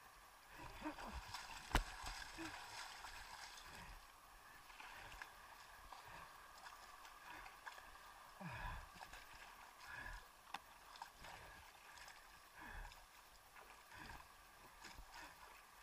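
Quiet water sloshing and gurgling around a blue inflatable craft as it is paddled, with a sharp knock about two seconds in.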